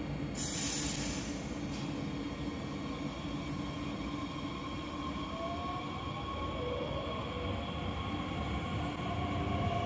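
Bombardier Talent 2 S-Bahn electric multiple unit starting away from the platform. There is a short hiss about half a second in, then a steady hum under an electric whine from the traction drive that rises in pitch as the train accelerates, growing louder near the end.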